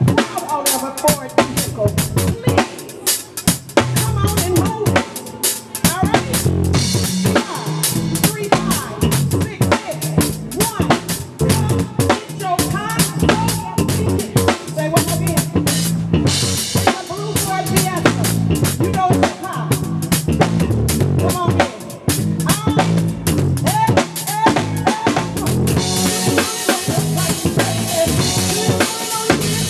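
Live band playing a steady groove: a drum kit with bass drum, snare rimshots and cymbals, over a rolling bass line and electric guitar.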